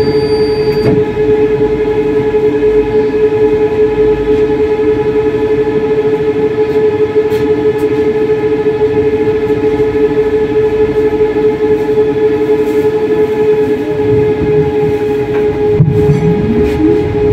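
Moderus Beta MF20AC low-floor tram running between stops, heard from inside: a steady electric whine over the rumble of wheels on the rails. A sharp click comes near the end, and a lower whine rises in pitch just after it.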